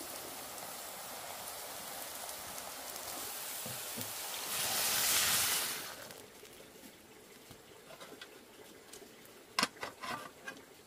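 Water poured from a bowl into a metal wok of cabbage rolls, a short splashing rush about five seconds in, after a steady hiss. Near the end a metal lid is set on the wok with a few sharp clanks.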